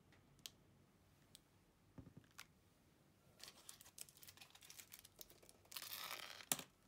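Faint handling sounds: a few small clicks and taps, then crinkling and tearing of plastic, densest about six seconds in and ending in a sharp click.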